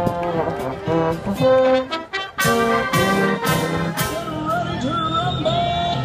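Marching band playing: trumpets and sousaphones holding brass notes over drum hits, with loud crashes about twice a second from a little past two seconds in.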